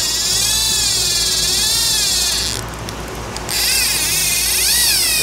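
Big-game trolling reel's clicker buzzing as line pays out off the spool, the pitch rising and falling as the spool speeds up and slows. It lets up briefly about three seconds in, then picks up again.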